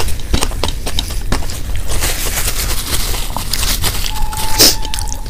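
Close-miked fingers squishing and scraping mashed aloo bharta and rice across a steel plate, with chewing, in a run of small wet clicks. About four and a half seconds in there is a short loud rustle of a tissue wiped across the mouth.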